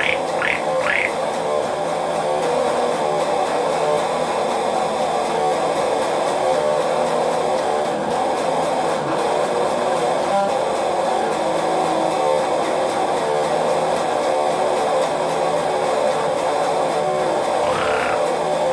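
Music: a steady, droning piece with guitar, held pitches sounding throughout without a break.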